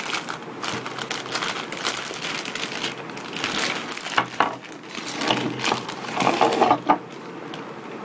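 Plastic packaging and paper wrapping being pulled open and unfolded by hand: continuous rustling and crinkling, with a sharp knock near the end.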